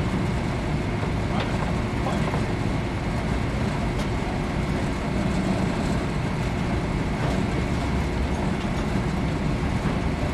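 Steady low rumble of a mobile crane's diesel engine running, with a few faint metallic clicks.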